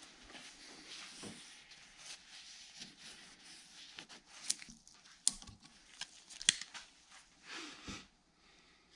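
A rag wiping and rubbing grease off a driveshaft CV joint, with handling noises. Three sharp clicks come in the middle, and a short swish comes just before the end.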